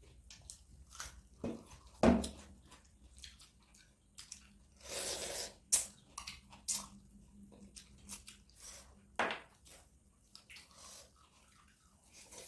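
Close-up eating sounds: wet chewing and lip smacks with scattered small clicks. There is a sharp knock about two seconds in and half a second of noisy rustling near the middle.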